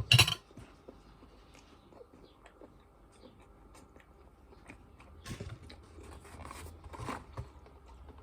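A person chewing a breadcrumb-coated chicken strip: a short loud noise right at the start, then soft, scattered chewing sounds that grow a little louder in the second half.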